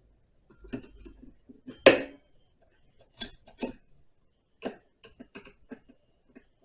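Irregular metallic clicks and knocks of a saw chain and tools being handled on a chainsaw bar. The loudest knock comes about two seconds in, with a few sharper clinks and small clatters after it.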